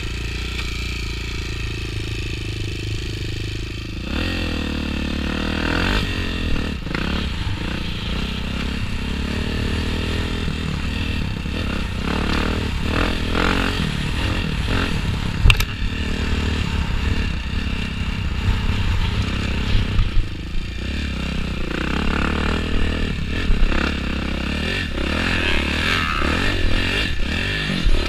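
Motocross dirt bike engine revving up and down as it is raced around a dirt track. A few sharp knocks come through, the loudest about halfway in.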